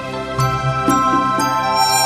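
Gentle new-age instrumental music: sustained notes with a plucked note about every half second.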